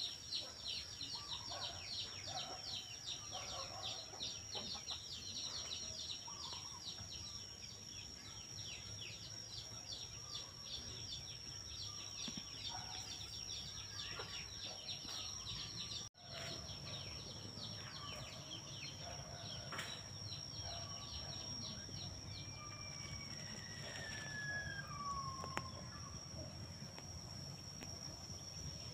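Outdoor bird and insect chorus: a steady high-pitched insect whine under a rapid run of short falling chirps, with scattered bird calls and a long falling whistled call a little past the middle. The sound drops out for an instant at about 16 seconds.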